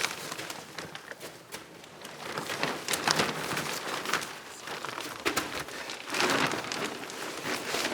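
Plastic damp-proof membrane sheeting rustling and crinkling in short, uneven rustles as it is unfolded and spread out over the floor.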